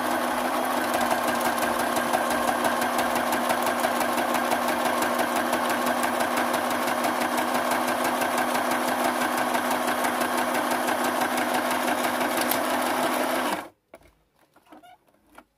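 Household sewing machine running steadily at speed, stitching a seam through clear crystal plastic, with a constant motor hum under rapid needle strokes. It stops abruptly near the end, leaving only faint handling noises.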